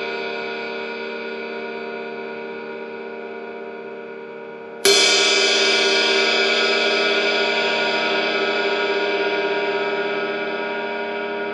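Paiste Sound Formula Reflector 20-inch Power Ride cymbal ringing and slowly fading, then struck once about five seconds in, its bright ring swelling and dying away again.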